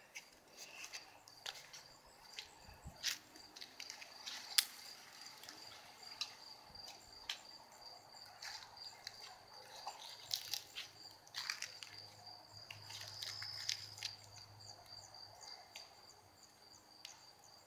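An insect trilling steadily at one high pitch in a quiet backyard, with scattered faint clicks and rustles.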